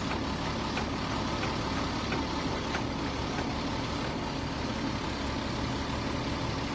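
Truck engine running steadily, heard from on board the vehicle as it drives, with a constant low hum and road noise.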